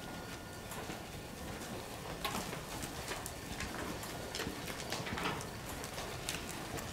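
Hooves of several Brangus baldy heifers stepping and shuffling on straw-bedded dirt: a scatter of irregular soft thuds and rustles.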